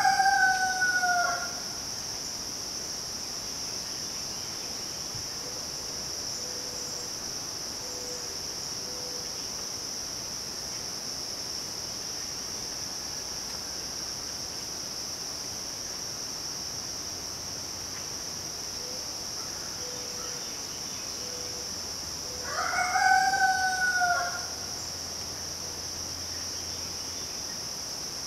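Rooster crowing twice: once right at the start and again about three-quarters of the way through, over a steady high-pitched drone of midsummer insects.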